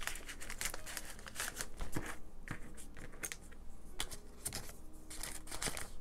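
Thin plastic baggies crinkling and rustling as they are handled and set down, with a few light knocks against the table.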